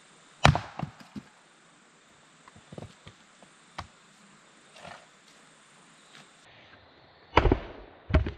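Sharp wooden knocks and cracks of firewood being prepared for a campfire, coming at irregular intervals. The loudest come about half a second in and in a quick pair near the end, with fainter taps between.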